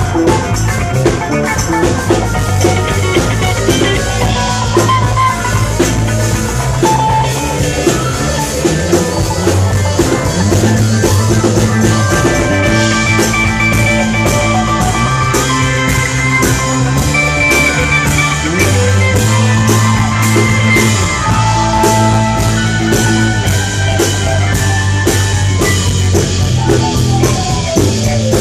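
Live country-rock band playing: a steady drum-kit beat under a pulsing bass line, with guitar and keyboard carrying sustained melody notes.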